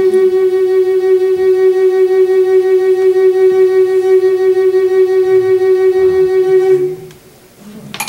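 Wooden Native American-style flute holding one long steady note that ends about seven seconds in. Applause starts right at the end.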